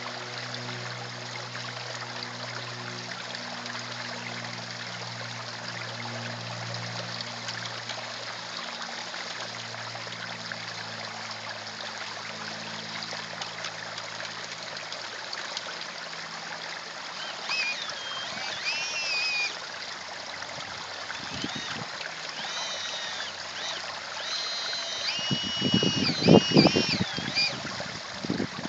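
Steady trickling and running water of a garden pond's water feature.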